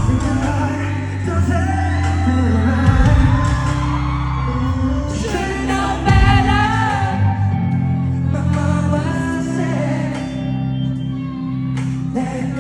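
Live pop song through a concert hall's sound system: steady bass notes under a singing voice with sliding vocal runs, strongest about halfway through, with audience members shouting and whooping.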